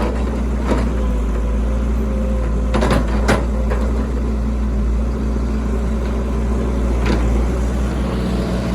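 Excavator's diesel engine running steadily under load, with a few sharp knocks from the machine as it works, the loudest a pair about three seconds in.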